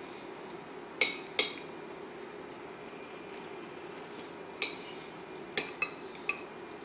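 A metal spoon clinking against a ceramic bowl as it scoops up curry. There are two clinks about a second in, then four more from the middle to near the end, each with a short ring, over a steady faint hum.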